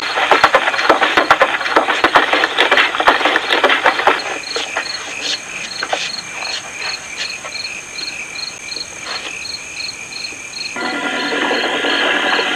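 Crickets chirping steadily, about three chirps a second, on a night-time soundtrack. A dense crackling noise fills the first few seconds, and sustained music tones come in near the end.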